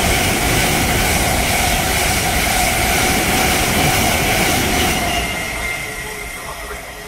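Thameslink Class 700 electric multiple unit passing through the station at speed: a loud, steady rush of wheels on rail with a faint high whine, fading as the last carriage goes by about five seconds in.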